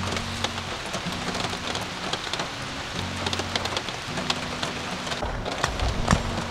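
Steady rain falling in a forest, with many separate drops tapping close to the microphone. A low rumble comes in near the end.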